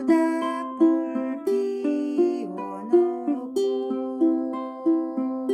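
Ukulele played fingerstyle as an arpeggio, single plucked notes ringing into one another, with a stronger pluck about every 0.7 seconds.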